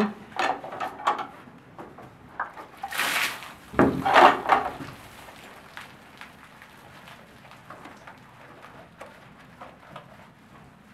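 A cow in labour gives a loud breath about three seconds in and then a low groan. After that come faint small knocks and rustling.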